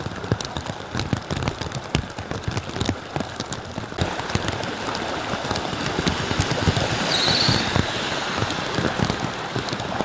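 Rain falling, with many sharp drop ticks close by. From about four seconds in a rush of water noise grows louder and then eases off. A brief high chirp sounds a little past the middle.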